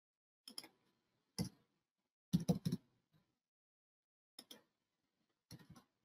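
Computer keyboard keys tapped in short, scattered groups, including a quick run of four strokes around the middle, as numbers are typed in.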